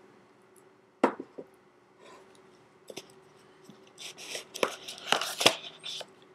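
Phone box and its packaging being handled: a sharp knock about a second in, then a flurry of clicks and rustles near the end as the contents are taken out.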